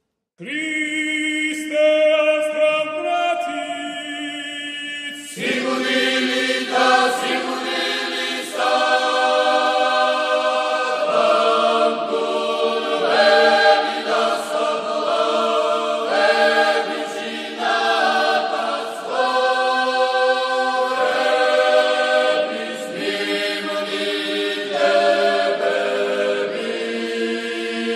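Choir singing an a cappella sacred chant: a few voices open after a brief silence, then the full choir comes in about five seconds in, holding sustained chords.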